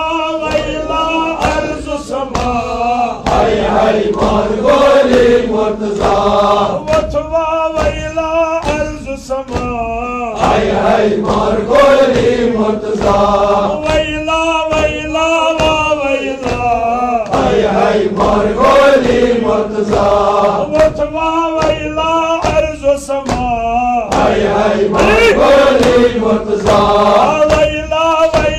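Male voices chanting a Kashmiri noha, a mourning lament for Imam Ali, over a steady beat of sharp strikes.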